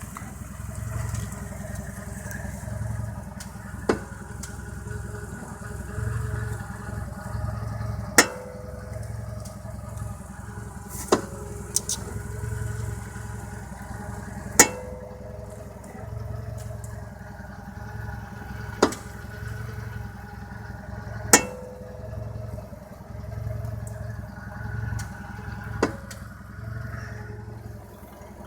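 Volkswagen Golf Mk5 making sharp single clicks, about eight of them a few seconds apart, over its steadily running engine: the clicking/knocking fault it shows when turning.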